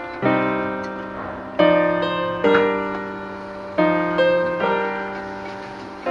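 Background piano music: slow chords struck one after another, each ringing and fading before the next.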